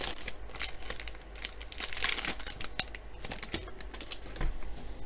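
Crinkling and rustling of baseball trading cards and their pack wrapper being handled, in quick irregular crackles.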